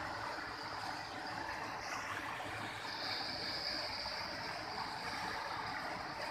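Rain-swollen floodwater rushing fast down a channel: a steady rush of running water. A thin, high steady whine joins it about three seconds in.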